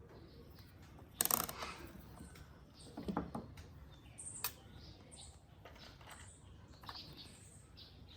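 Small tools and earphone parts being handled on a work surface. A brief rubbing sound comes about a second in, a dull knock about three seconds in, and a single sharp click a little later, with faint light clicks between.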